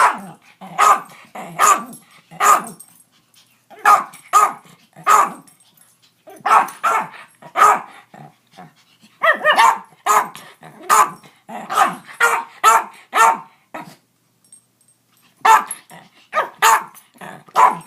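A puppy barking over and over in quick runs of short, sharp barks, with brief gaps between runs and a pause of about two seconds near the end.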